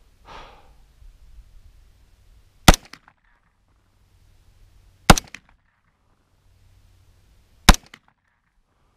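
Three single shots from a 9mm KE Arms AR9 pistol, spaced about two and a half seconds apart: slow, aimed fire.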